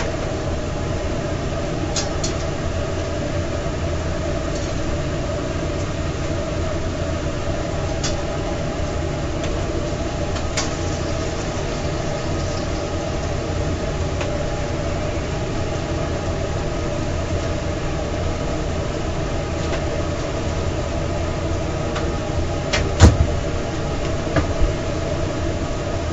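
Steady mechanical hum and rumble of food-trailer kitchen equipment running during cooking, with a few light clicks and a sharp loud knock about 23 seconds in, followed by two smaller knocks.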